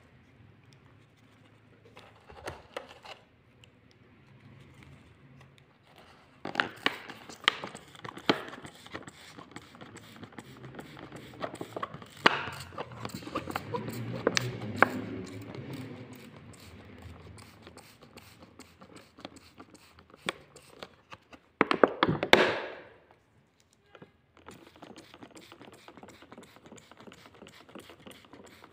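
Clear plastic seedling bags crinkling and rustling, with small taps and clicks as soil is pressed around lettuce seedlings. About three quarters of the way through, a hand trigger spray bottle gives a loud hissing burst of mist lasting about a second.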